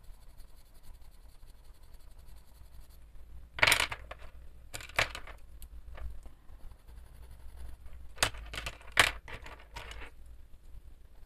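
Wooden coloured pencils clicking and clattering as they are put down and picked up on a tabletop: several sharp clicks and short rattles in two clusters, a few seconds in and again near the end.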